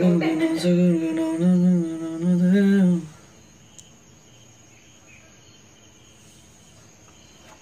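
A person humming four held notes, the last rising slightly, stopping about three seconds in. After that there is only a faint, steady background hiss with a thin high tone.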